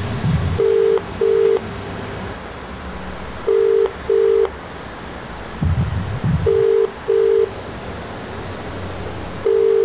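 Telephone ringback tone: a double ring of two short beeps, repeating about every three seconds. The call is going unanswered.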